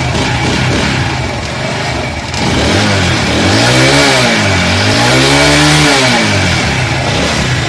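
Motorcycle engine idling, then revved twice, each time rising and falling in pitch. Its cylinder-head nuts are freshly tightened to stop a leaking head gasket, and it runs without the gasket-leak noise and backfiring.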